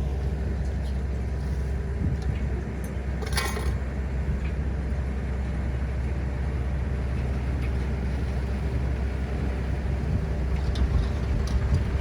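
Diesel engine of heavy construction machinery running steadily at a low pitch, with a brief sharp clatter about three and a half seconds in.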